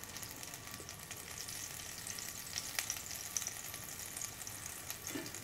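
A lump of butter sizzling faintly as it melts in a hot pan, an even crackling hiss with many small pops.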